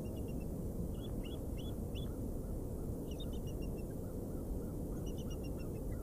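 Bald eagle calling: several bursts of quick, thin, high piping notes, over a steady low background noise.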